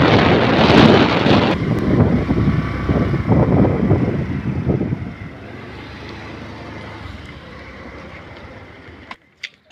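Wind rushing over the microphone on a moving motorbike, loud for about the first five seconds, then easing to a quieter steady rumble as the bike slows; the sound cuts off suddenly a little after nine seconds.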